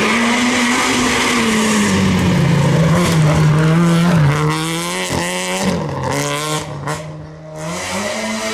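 Citroën Saxo VTS rally car's 1.6-litre four-cylinder engine at high revs, the pitch dropping and climbing again through lifts and gear changes as it is driven hard past. It goes quieter for a moment near the end, then picks up again.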